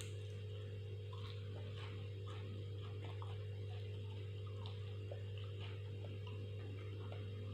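Someone chewing with their mouth full, heard as scattered soft wet clicks and smacks over a steady low electrical hum.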